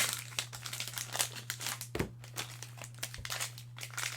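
Cellophane wrappers of trading-card fat packs crinkling and tearing as they are handled and opened, in a run of irregular crackles with a soft thud about two seconds in. A steady low electrical hum runs underneath.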